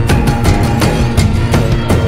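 Background music with a steady beat of about four strokes a second over a strong bass line.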